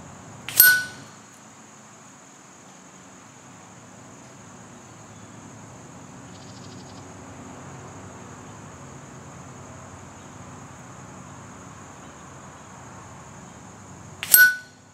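Two pellet hits on a steel knockdown target, each a sharp metallic ding that rings briefly, about fourteen seconds apart. A steady high insect drone runs underneath.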